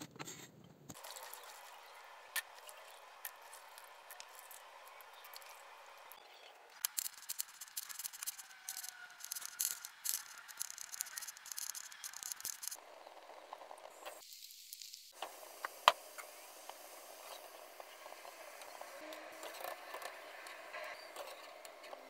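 Kitchen prep sounds in turn: a cleaver chopping rapidly on a wooden board through the middle, then oil sizzling and crackling in a small steel frying pan. One sharp click stands out about two-thirds of the way through.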